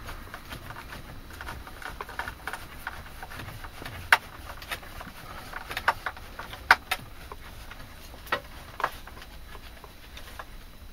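Screw being driven by hand into a wooden board: scattered sharp clicks, the loudest about four, six and seven seconds in, over a low steady hiss.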